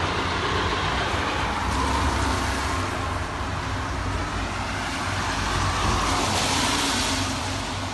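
Heavy construction-site machinery running continuously: a steady low engine rumble under a broad hiss, which grows brighter for a second or so about six seconds in.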